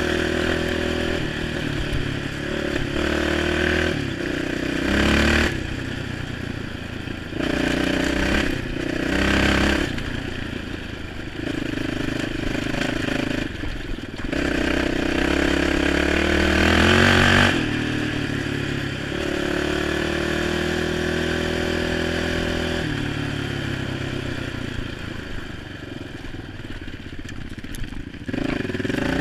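All-terrain vehicle engine running under throttle as it is ridden over a rough dirt trail, its pitch climbing and dropping back again several times, with a few brief louder knocks and rattles.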